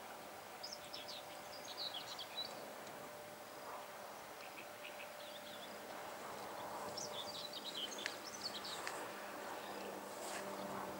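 Small birds chirping in two short flurries, one near the start and one past the middle, over a faint steady hum from a distant passing train.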